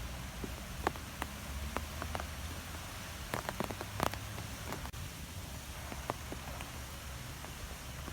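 Wind blowing through trees: a steady hiss of rustling leaves with scattered light ticks, over a low rumble of wind.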